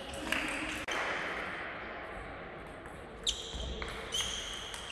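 Table tennis ball ticking sharply off bats and table in a rally, with a few hits from about three seconds in, each ringing briefly in a large sports hall.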